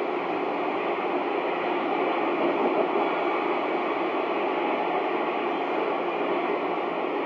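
Cobra CB radio receiver hissing a steady static through its speaker, an open channel with no voice on it.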